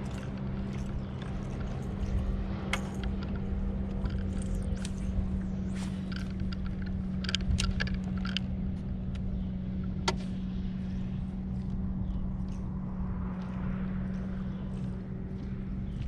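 Boat motor humming steadily at an even pitch over a low rumble of water and wind, with a few sharp clicks and knocks scattered through it.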